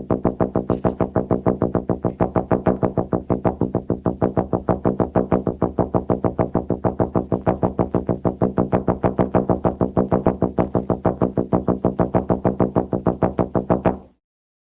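Synthesizer sound effect: one steady-pitched electronic note pulsing rapidly and evenly, about six times a second, that cuts off suddenly near the end.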